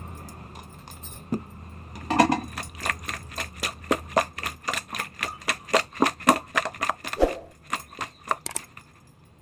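Raw seer fish pieces being tossed and mixed by hand in a bowl to coat them with turmeric: a quick run of wet knocks and clicks, about four a second, starting about two seconds in.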